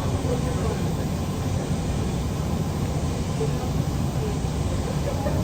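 Steady low rumble inside a passenger train carriage as it runs, with faint voices in the background.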